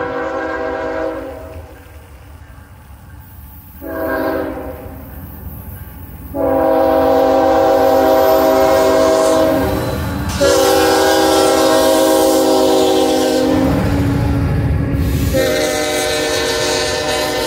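Freight diesel locomotive's multi-chime air horn blowing for a grade crossing: a short blast about four seconds in, then long blasts. Near the end the locomotive passes close, its engine and wheels rumbling heavily between horn blasts.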